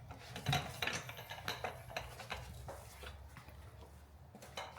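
Scattered light metallic clinks and taps of tools being handled as work on the car begins, thinning out toward the end.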